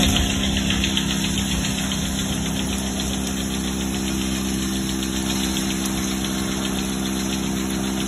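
Frick 54-inch electric circle sawmill running with a steady mechanical hum, a little louder in the first second before settling to an even level.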